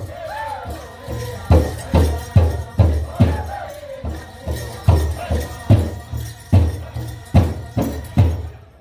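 Powwow drum group playing a duck-and-dive song: the big drum beats steadily at a little over two beats a second under the singers' high, wavering singing. The drum pauses briefly at the start while the singing carries on, and the song stops suddenly near the end.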